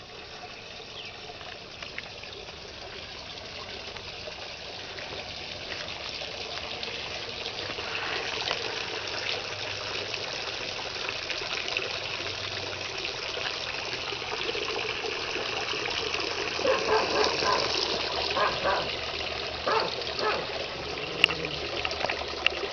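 Water trickling steadily, growing louder through the middle. A few short pitched sounds come near the end.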